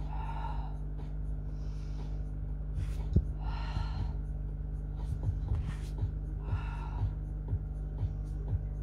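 Heavy breathing from people exercising: a strong breathy exhale or inhale every second or so to every few seconds, paced to the Pilates cue of breathing out on the leg lift and in on the flex. The breathing sits over a steady low hum, with faint regular ticks in the second half.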